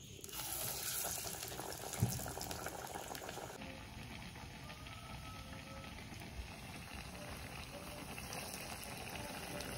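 Chana dal fritters (parippu vada) frying in hot coconut oil in a kadai: a steady bubbling sizzle full of fine crackles. A single knock about two seconds in.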